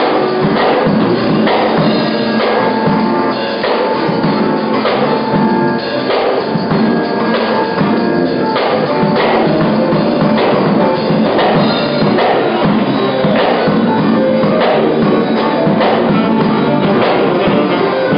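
Live band playing: a drum kit keeps a steady beat under guitars and an electric keyboard.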